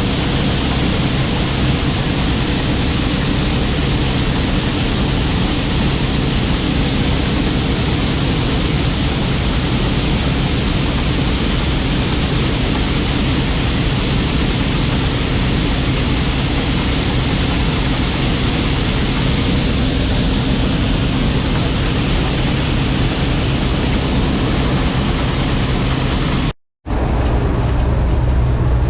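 Combine harvester running steadily while harvesting corn: a loud, even drone of engine and threshing machinery with a low hum underneath. It breaks off for a moment near the end and resumes unchanged.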